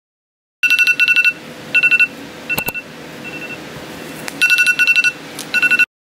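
Smartphone alarm going off: clusters of rapid, high electronic beeps that repeat, then cut off suddenly near the end.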